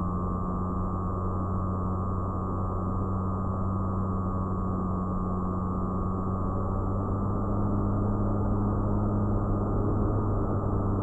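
An FPV fixed-wing model plane's motor and propeller whining steadily in flight, heard from the onboard camera, with rushing airflow under it. The pitch sags slightly past the middle, and the sound gets a little louder in the last few seconds.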